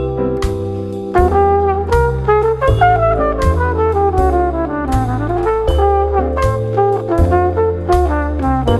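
Smooth jazz instrumental: a trumpet plays the melody over bass and drums. A long run of notes falls from about two and a half seconds in, then climbs back up.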